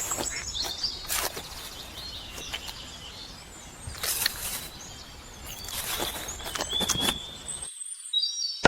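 Birds chirping in the background over steady outdoor ambience, with a few short handling noises.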